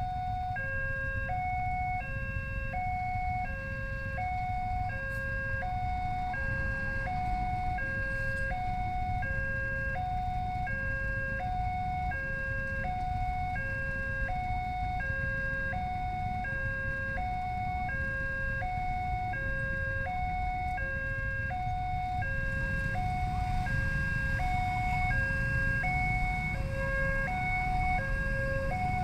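Railway level-crossing warning alarm sounding an electronic two-tone chime, a low note and a higher note alternating evenly at roughly a pair every second and a half. Underneath runs a low traffic rumble from idling motorcycles that swells in the last few seconds as they move off.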